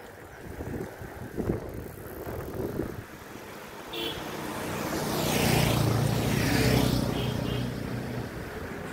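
A motor vehicle drives past: engine hum and tyre hiss build up about four seconds in, are loudest around six seconds, then fade. Under it is the low rumble of wind and road noise from a moving bicycle.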